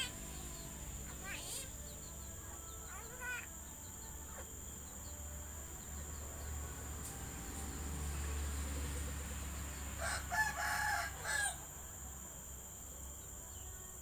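Caged Javan myna (jalak kebo) calling: a few short chirps in the first few seconds, then a louder call in three parts about ten seconds in, lasting about a second and a half. A steady high insect drone runs underneath.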